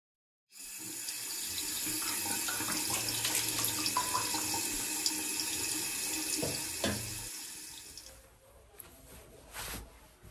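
Bathroom tap running into a sink, a steady splashing hiss that dies away about seven to eight seconds in, leaving quieter handling sounds and a brief knock near the end.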